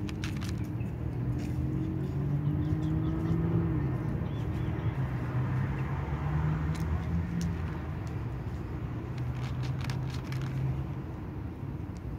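A cat crunching dry kibble, heard as scattered sharp crunches in small clusters, over the steady engine drone of road traffic that eases off near the end.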